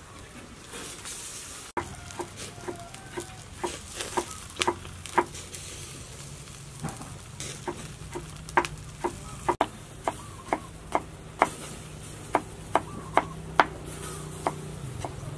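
Kitchen knife slicing tomatoes on a wooden cutting board: a long, irregular run of sharp knocks, roughly two a second, louder in the second half.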